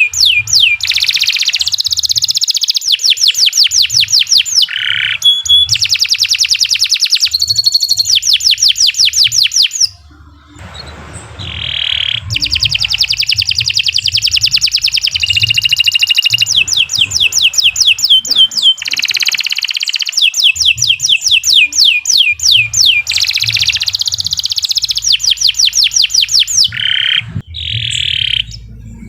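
Domestic canary singing a long, continuous song of fast repeated trills, with a short pause about ten seconds in.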